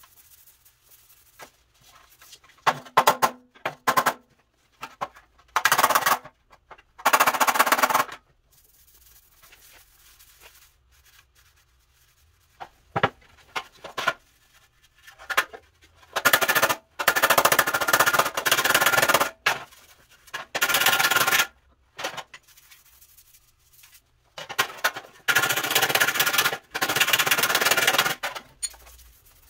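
MIG welder welding up cracks in a steel grille panel, a crackling buzz in bursts. The bursts are short tacks of under a second early on, then longer runs of one to three seconds in the second half, with pauses between.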